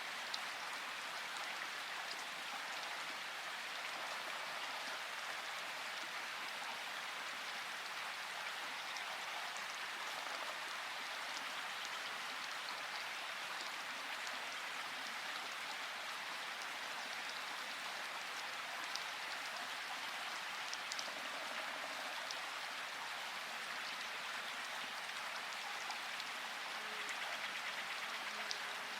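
Steady rain falling, an even hiss with scattered drops tapping.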